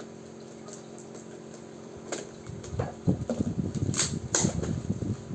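Packaging wrap and tape being pulled and torn open: irregular crackling and rustling with a few sharp clicks, starting about two seconds in, over a steady low hum.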